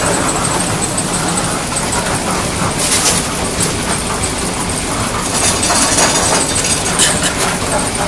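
Engine of a site concrete mixer running steadily with a low hum, with short sharp clatters about three seconds in and a few more near the end.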